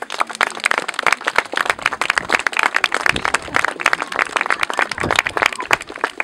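Small audience applauding: many hands clapping in a dense, uneven patter that breaks out suddenly and thins out near the end.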